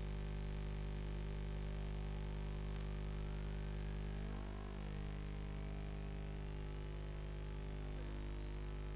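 Steady electrical hum with a static hiss, the interference noise of an FPV video link's audio rather than any sound from the field. A faint tone slowly rises in pitch through it, and the hum wavers briefly about four and a half seconds in.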